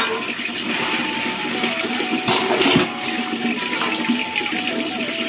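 Liquid being scooped from a large metal pot and poured back, an even splashing and pouring rush that swells briefly about halfway through.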